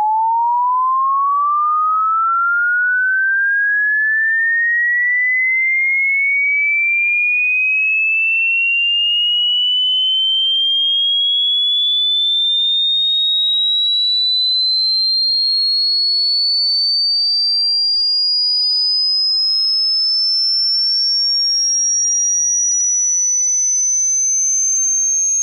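Electronic sine-wave sweep: a single pure tone rising slowly and smoothly in pitch, from a high tone to a very high one, at a steady loudness.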